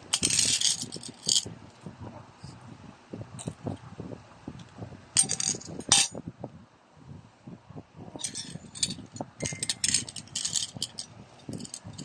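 M&M's candies rattling and clicking against one another in their packet, in several bursts: near the start, about five seconds in and again from about eight seconds in. Between the bursts comes a dense run of small crunches from chewing the hard candy shells.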